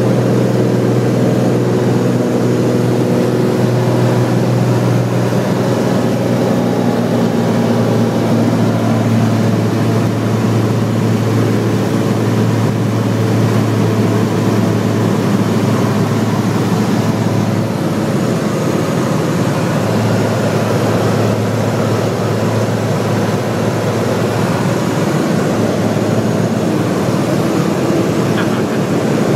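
Cessna 210's six-cylinder piston engine and propeller heard from inside the cabin, running loud and steady at climb power after takeoff. Its even drone turns rougher after about ten seconds.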